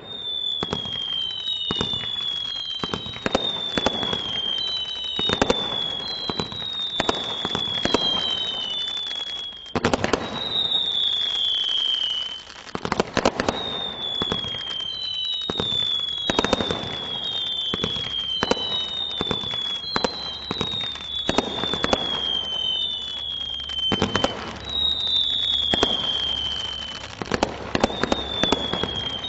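Category 3 combination Roman candle firing a continuous barrage: a run of short whistles, each falling slightly in pitch and often two at once, over repeated bangs as the shots burst.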